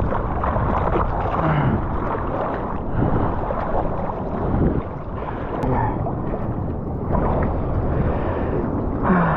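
Rushing, buffeting noise of wind and sea water against an action camera's microphone, steady and loud throughout.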